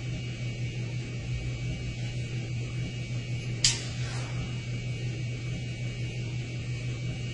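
Steady low hum with hiss, and one sharp click about three and a half seconds in.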